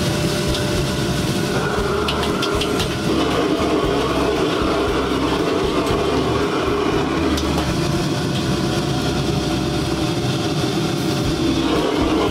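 Gas wok burner running with a steady rush under flat rice noodles sizzling in a wok being tossed. A few light clicks come against the wok about two to three seconds in.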